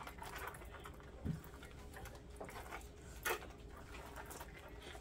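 Faint spluttering and squishing as liquid fabric dye is squirted from a plastic squeeze bottle onto damp, crumpled fabric, with a soft thump about a second in and a sharp click a little past the middle.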